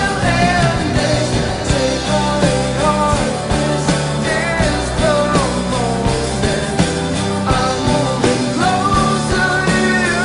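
A song with a full band playing steady low notes under a gliding lead melody.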